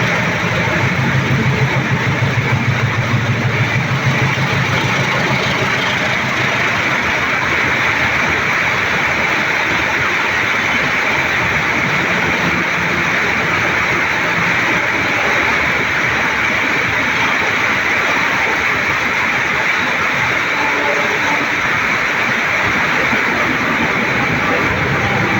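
Passenger trains passing in heavy rain: a steady noise of rain and rolling train, with a diesel locomotive's low engine throb in the first few seconds.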